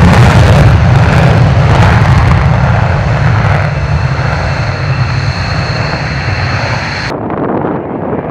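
Belgian Air Force F-16's afterburning Pratt & Whitney F100 turbofan at full afterburner on the take-off roll: a loud, deep rush of jet noise that slowly fades as the jet pulls away, with a high steady whine coming through from about three seconds in. About seven seconds in it changes abruptly to a duller, softer jet sound as another F-16 comes in on approach.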